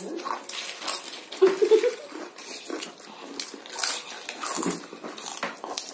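Lay's potato chips being crunched and chewed by several people at once, in quick irregular crisp crunches. A short voiced murmur comes from one of the eaters about one and a half seconds in.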